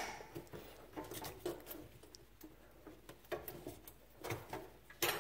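Faint scattered clicks and scrapes of a pop-up drain tailpiece being unscrewed by hand from the sink drain body, with a sharper click at the start and another near the end.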